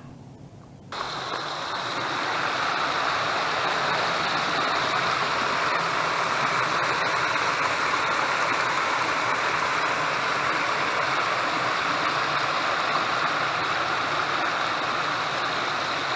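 Water pouring over a concrete spillway and crashing into churning water below: a steady rushing that cuts in suddenly about a second in.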